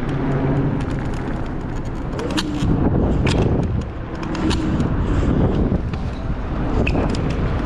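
Wind buffeting the microphone and road noise from a Dualtron Victor electric scooter riding along a street, with a few sharp knocks and rattles from bumps in the surface.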